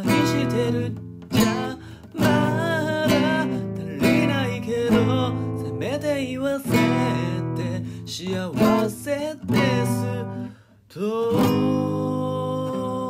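Background music on strummed acoustic guitar playing a melody, with a short break about ten and a half seconds in.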